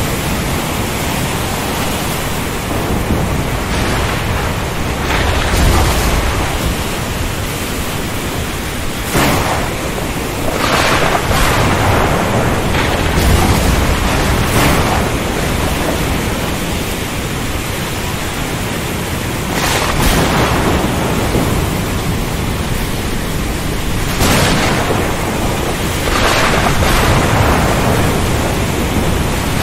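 Thunderstorm: a steady rush of heavy rain, broken by repeated cracks and rumbles of thunder, about seven in all, some deep and heavy.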